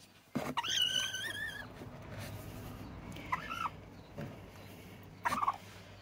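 Broody Serama hen on her nest giving grumpy calls as a hand reaches under her: one long, wavering call about half a second in, then two short calls, one in the middle and one near the end.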